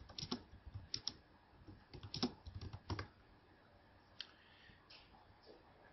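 Computer keyboard keys being typed: a quick, faint run of clicking keystrokes over the first three seconds, then a few scattered ones.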